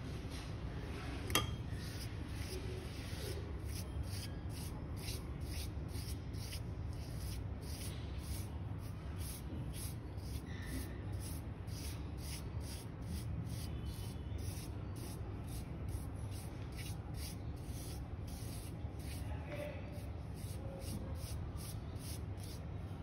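Soft rubbing and scraping as a steel spoon spreads paste over thin rolled dough and hands smooth the stacked layers flat, over a steady low hum. One sharp click about a second in.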